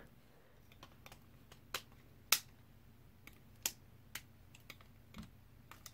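Plastic LEGO bricks clicking and knocking together as the model is handled and its pieces repositioned: a scatter of sharp, irregular clicks, the loudest about two seconds in.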